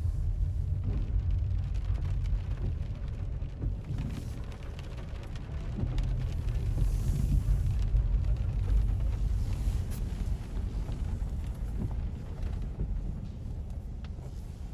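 Low rumble inside a car's cabin as it rolls slowly over cobblestones, growing louder about halfway through, with a few faint knocks.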